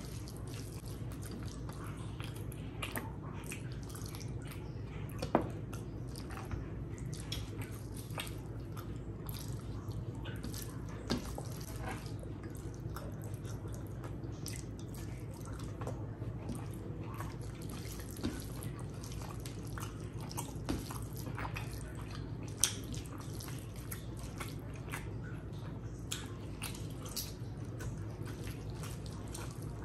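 Wet, sticky clicks and smacks of a hand squeezing and mixing rice with beef paya curry on a steel plate, together with close-up chewing and lip-smacking. A few sharper smacks stand out over a steady low hum.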